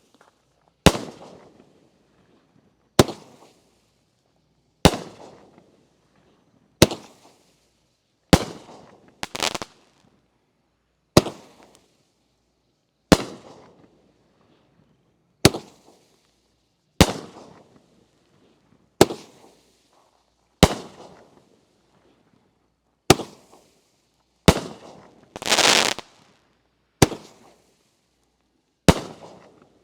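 A 500-gram consumer fireworks cake firing single shots, each a sharp bang with a short fading crackle, about one every two seconds. Two shots come close together, and one denser, longer burst comes near the end.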